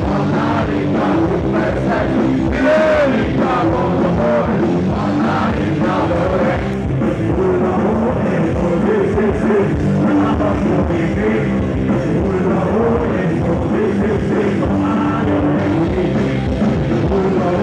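Live rock band playing: electric guitars and drums with a singer's voice over them, loud and unbroken.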